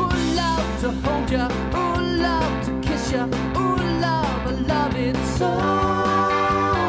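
Animated Valentine plush dog playing its song: an upbeat tune with guitar and a singing voice, ending on a long held note.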